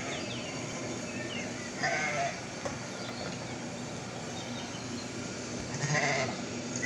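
A goat bleating twice, about two seconds in and again near six seconds in, each a short wavering call, played from a computer over a steady background hiss.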